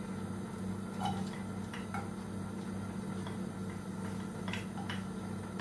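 A few light, scattered clicks and taps of a wooden spatula against a plate as chopped garlic is scooped up, over a steady low hum.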